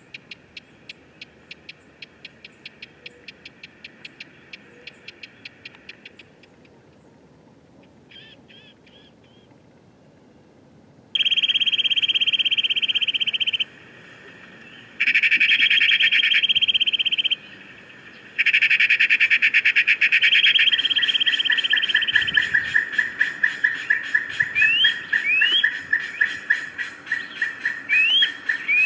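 High-pitched animal calls. A soft rapid clicking trill comes first. Then loud, shrill trills switch on and off abruptly several times, and near the end short rising chirps sound over a continuing pulsed trill.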